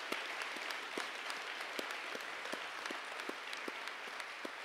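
Audience applauding: many hands clapping in a steady patter that tapers slightly near the end.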